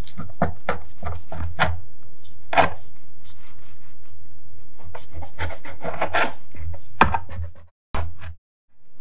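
Knife blade cutting through rolled dough and scraping on parchment paper: a quick series of short scraping strokes, about two or three a second. The strokes stop suddenly near the end.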